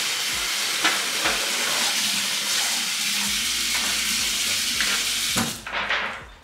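Kitchen tap water running steadily as a disposable aluminum pan is rinsed out under it. The water stops about five and a half seconds in.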